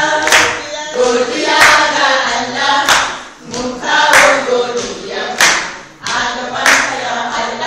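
A small group of men and women singing a Hausa-language praise song together, a cappella, with loud hand claps on the beat about every second and a quarter.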